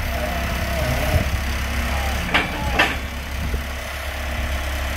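JLG telehandler engine idling steadily. Two brief sharp sounds come a little after two seconds in, about half a second apart.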